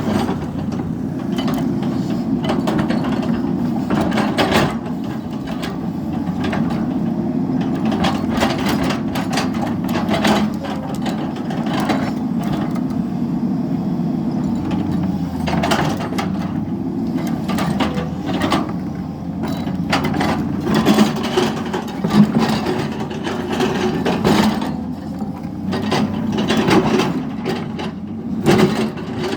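SANY excavator's diesel engine running steadily, its pitch rising and falling as the hydraulics take load. Scattered knocks and scrapes come from the demolition of the drain.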